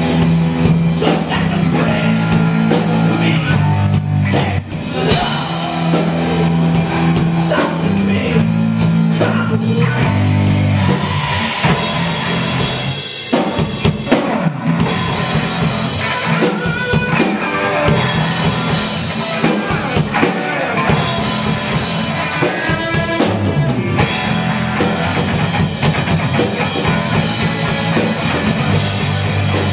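Live indie rock band playing: electric guitar, electric bass and a drum kit. The bass holds steady low notes for the first ten seconds or so under continuous drumming.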